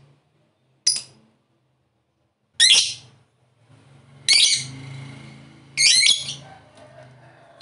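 Lovebird giving short, sharp chirping calls: four separate bursts a second or so apart, with a fifth at the very end. A faint low hum runs underneath.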